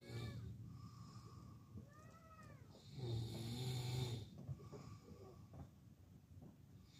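A man snoring in his sleep: one long, loud snore about three seconds in, with quieter snoring breaths before and after it.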